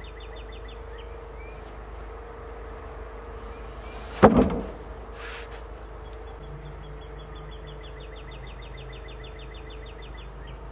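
A single heavy thump about four seconds in as a freshly milled white oak slab is dropped onto a stack of slabs. An insect trills in rapid, even pulses in the background.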